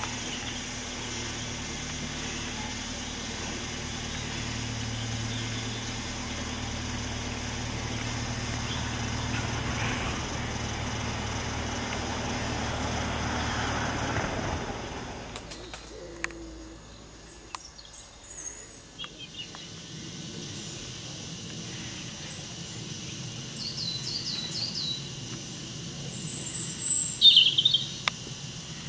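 Steady low hum of a canal narrowboat's diesel engine for about the first half, growing slightly louder, then cutting off. After that the background is quieter, with short high bird chirps; the loudest come a couple of seconds before the end.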